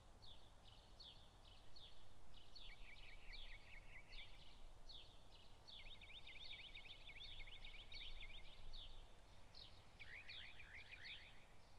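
Faint birdsong: small birds chirping, many short high chirps in quick runs, busiest about halfway through.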